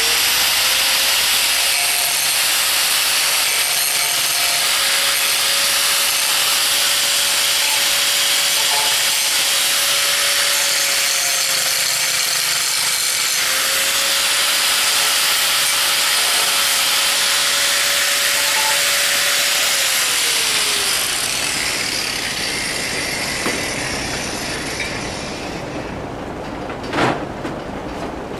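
Corded angle grinder running against the cut end of a steel PTO shaft tube, deburring its sharp edges, with a steady motor whine under a grinding hiss. About twenty seconds in it is switched off and the whine falls as the disc spins down. A single sharp knock comes near the end.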